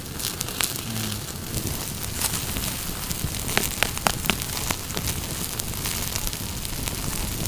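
Open wood fire crackling: a steady hiss with scattered sharp pops and snaps, busiest near the middle, as oil-basted meat roasts in it.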